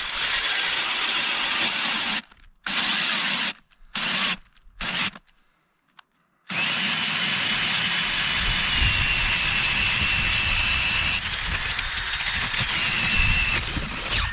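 Cordless drill spinning an ice auger that cuts down through lake ice. It runs in several short stop-start bursts at first, then runs steadily with a whine for the last eight seconds.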